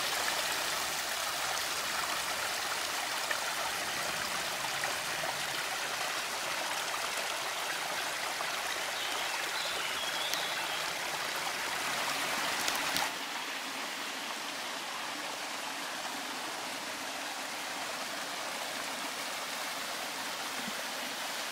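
A small mountain stream running, a steady rush of flowing water; about 13 seconds in it drops suddenly to a quieter, thinner rush.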